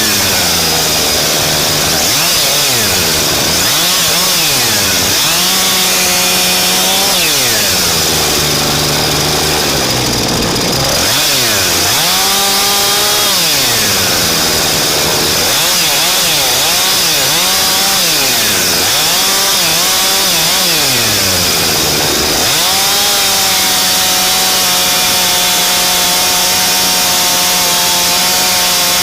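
Husqvarna two-stroke chainsaw revved up and let drop back again and again, every second or two, then held at a steady high speed for the last several seconds.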